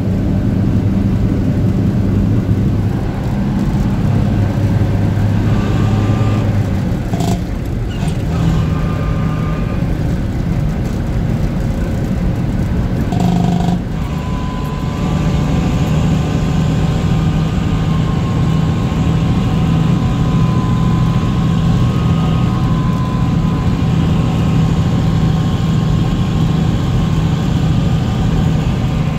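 Diesel engine of a 1975 Dodge Bighorn tandem-axle tractor truck running as it drives along the road, over a haze of road noise. Its note breaks twice and comes back lower each time, then holds steady.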